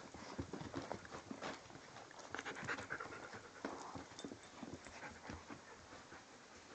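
Six-week-old Inuit sled dog puppies panting and scuffling as they play, with many small irregular clicks and knocks that thin out over the last couple of seconds.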